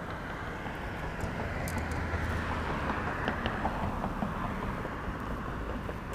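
A vehicle passing on the road over the bridge. Its tyre and engine noise swells between about one and four seconds in, then fades.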